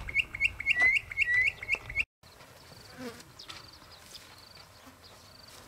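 Rapid, regular high-pitched chirping, about five chirps a second, over a low rumble; it cuts off abruptly about two seconds in, leaving only faint scattered chirps.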